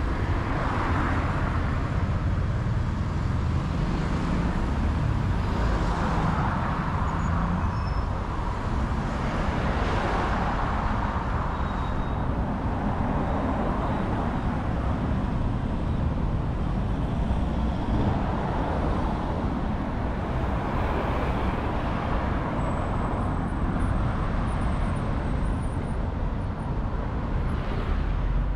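City street traffic: cars passing one after another every few seconds, each swelling and fading over a constant low rumble of engines and tyres.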